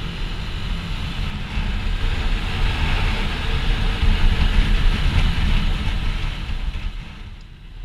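Small motorcycle riding at cruising speed: engine and road noise under a heavy, steady rumble of wind on the camera microphone, easing off about seven seconds in.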